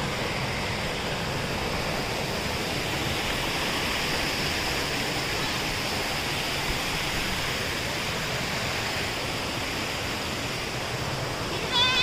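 Steady rush of flowing stream water, with a short wavering goat bleat near the end.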